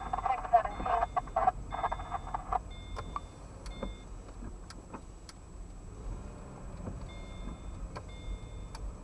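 Car cabin noise while driving slowly: a steady low engine and road rumble, with a repeating high electronic beep that switches on and off in two spells and several sharp clicks. A louder, muffled broken sound fills the first two and a half seconds.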